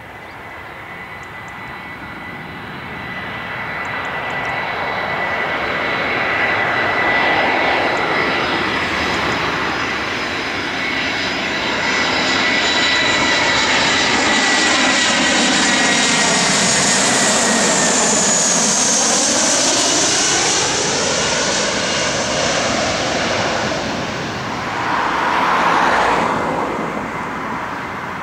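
An Airbus A321 airliner's jet engines on landing approach, passing low overhead. A steady whine sits over a growing rush that is loudest a little past halfway, sweeping as the jet goes over, then fading near the end.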